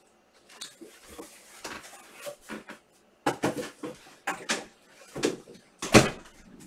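Trading cards and card packs being handled: a string of irregular rustles, taps and clicks, the loudest a sharp knock about six seconds in.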